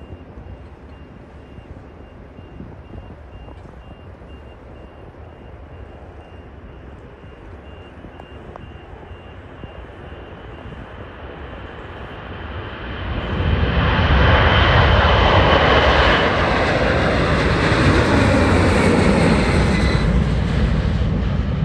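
Boeing 747 Dreamlifter's four turbofan engines at takeoff power. A distant low rumble during the takeoff roll swells sharply about thirteen seconds in into loud jet noise as the freighter climbs past overhead. Near the end a whine falls in pitch.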